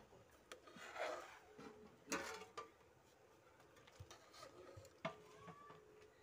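Faint scraping of a spoon against an aluminium pot while skimming the scum off boiling sugarcane juice, with several sharp knocks on the pot, the loudest about two and five seconds in.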